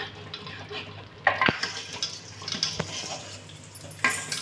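A metal ladle stirs and sloshes thick mutton nihari gravy in a metal pot as a flour-and-water slurry is mixed in. The ladle clinks against the pot a couple of times, once about a second in and again near the end.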